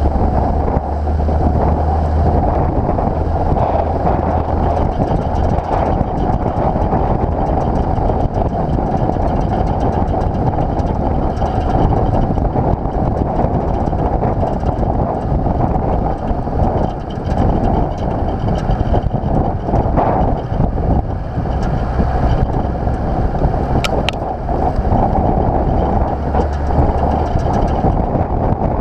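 Nissan GU Patrol's TD42 straight-six diesel engine running steadily as the 4WD drives a soft sand track, with wind rushing over the outside-mounted microphone. A couple of brief sharp ticks come past the middle.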